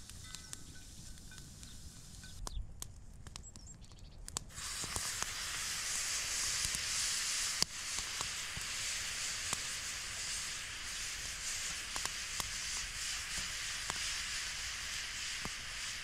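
Peppers, onions and tomatoes sizzling in a frying pan over a small wood fire. The steady hiss starts suddenly about four and a half seconds in; before that there are only a few faint clicks.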